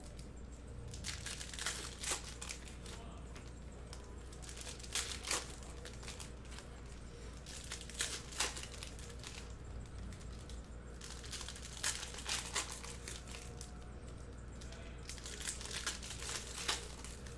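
Foil wrappers of Panini Select trading-card packs crinkling and tearing as packs are opened by hand, in short bursts every few seconds.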